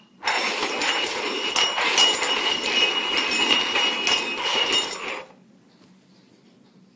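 Cups or dishes clattering and scraping on a hard surface, with ringing clinks, for about five seconds before it stops abruptly.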